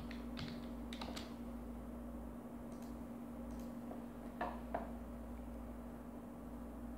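Scattered clicks of a computer keyboard and mouse: a few quick keystrokes in the first second or so, then single clicks, with a stronger pair a little after halfway. Under them runs a steady low electrical hum.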